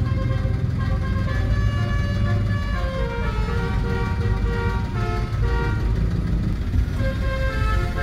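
Tour bus's Basuri 'telolet' multi-tone air horn playing a melody of quick, stepped notes, over engine and traffic rumble.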